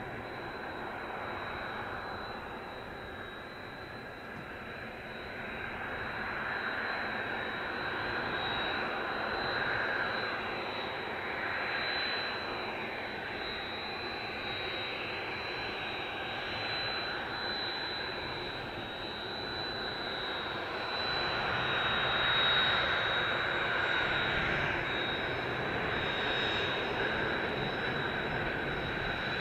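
Kawasaki T-4 jet trainers' twin turbofan engines running at taxi power as several aircraft roll along the runway in line: a steady high-pitched whine over a broad rush. It grows louder about three quarters of the way through as the jets draw near.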